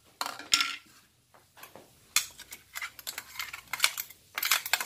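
Metal spoon clinking and scraping as ground green chilli and ginger-garlic paste is knocked out of a mixer-grinder jar into a plastic tub. A quick run of clinks and knocks, a short lull about a second in, then a denser run of clicks near the end.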